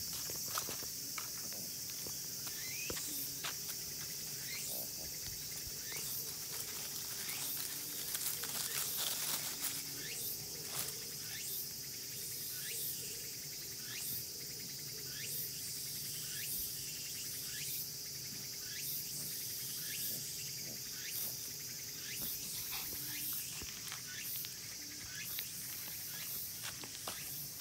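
Steady high-pitched insect chorus, with short rising chirps repeating about once a second and scattered light clicks of footsteps on the road.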